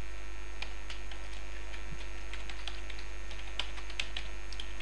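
Computer keyboard typing: irregular, light keystroke clicks while code is entered, over a steady low electrical hum.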